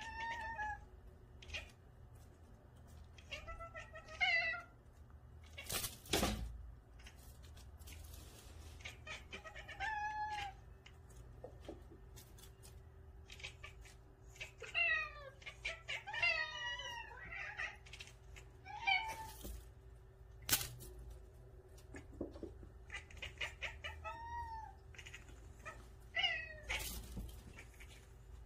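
Several house cats chattering and chirping at a feather wand toy: short bent chirp-like calls, often overlapping, every second or two, with quick sharp clicks in between. This is the excited chatter cats make at a new prey-like toy.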